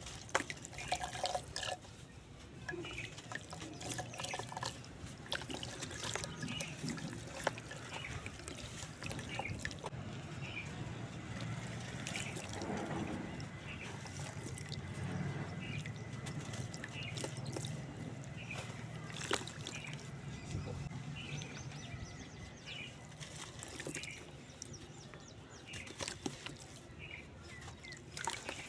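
Water-soaked cement sand crumbling and dripping in a clay pot: wet trickling with many small scattered crackles and drips.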